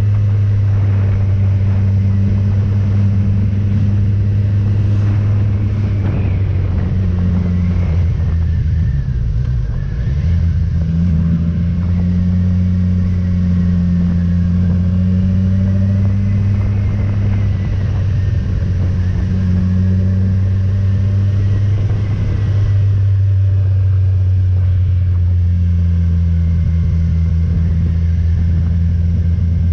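Motorcycle engine running steadily while riding. Its note dips about eight seconds in, then picks up again a couple of seconds later.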